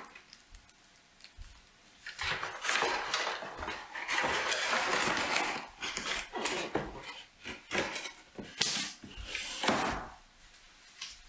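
Rustling and clattering of things being handled, with scattered short knocks, loudest from about two to ten seconds in.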